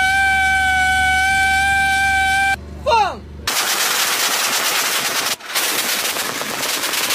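A steady, siren-like alarm tone that stops about two and a half seconds in and ends in a short falling glide. About a second later a towed anti-aircraft cannon opens up in rapid fire, a dense run of shots that continues with one brief break.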